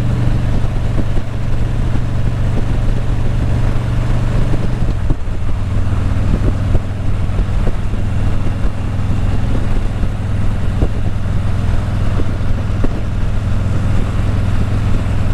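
Motorcycle engine running steadily while riding, with wind noise on the microphone; the engine note drops slightly about five seconds in.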